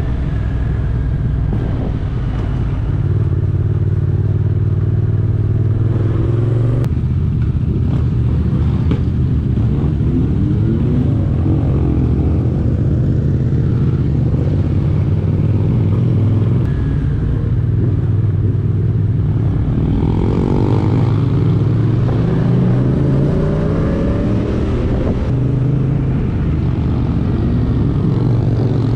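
Motorcycle engine running under way, its revs rising and falling repeatedly as the bike speeds up and shifts gear.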